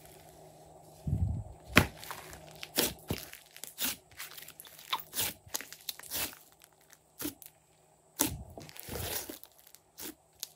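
Hands squeezing, pressing and stretching a large batch of pink and mint slime, giving irregular wet squelches and sharp crackling pops.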